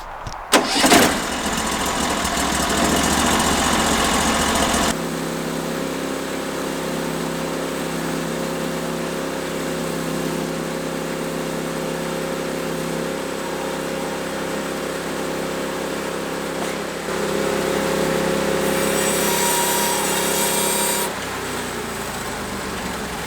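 Portable band sawmill's gasoline engine running steadily, after a sharp knock and a few seconds of loud noise at the start. It runs louder, with a high whine, for a few seconds near the end.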